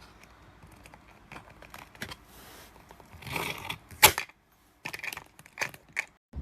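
Handling noises from a hard-shell spinner suitcase: scattered clicks and short rustles, with one sharp click about four seconds in, followed by a few more brief scraping clicks.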